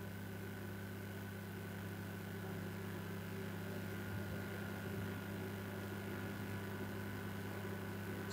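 Faint steady low hum with a light hiss throughout, the background hum of the recording setup.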